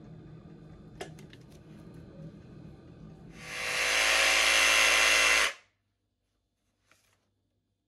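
A jigsaw motor runs for about two seconds, coming up to speed quickly and stopping suddenly. Before it, a drink is being poured from a can into a glass, which makes a faint fizzing.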